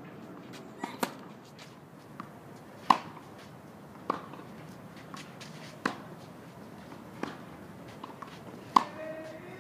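Tennis ball being struck back and forth with rackets on a clay court: sharp pops about every one to two seconds, the loudest about three seconds in and near the end.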